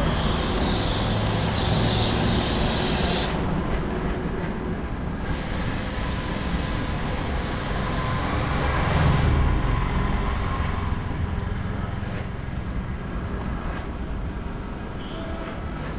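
Pressure washer spraying water onto a motorcycle, in two long bursts: the hiss cuts off about three seconds in, starts again about five seconds in and stops near nine seconds, over a steady low rumble.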